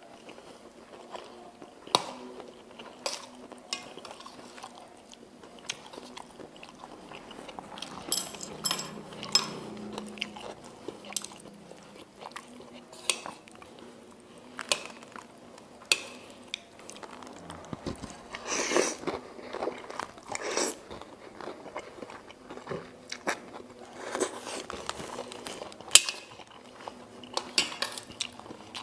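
Close-up eating of mie ayam: chewing and biting, with a spoon and chopsticks clicking and scraping against a metal plate many times.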